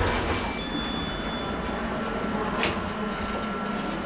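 Star Lift machine-room-less traction lift heard from inside its car: a steady low hum with scattered clicks and knocks. A thin high tone is held through most of it, and a brighter one sounds briefly early on.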